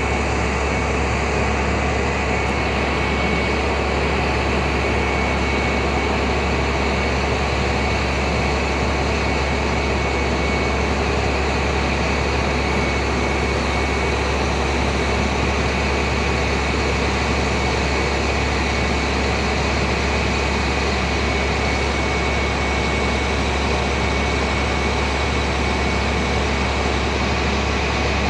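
The truck's 10.8-litre six-cylinder diesel engine runs steadily while it powers the Terex Hi-Ranger aerial boom as the boom raises. A steady high whine sits over the engine sound.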